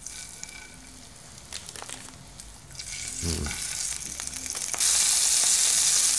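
Raw shrimp and scallops searing in hot olive oil in a steel frying pan: light crackling at first, then the sizzle builds about three seconds in and jumps to loud, steady sizzling near five seconds in.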